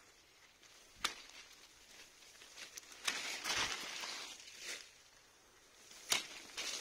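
Pruning shears snipping cherry tree shoots: three sharp snips about a second, three seconds and six seconds in, with leaves and branches rustling after the middle cut.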